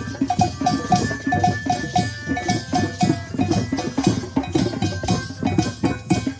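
Music with a quick, steady percussion rhythm: short knocking hits over a low beat, with a high note repeating about three times a second.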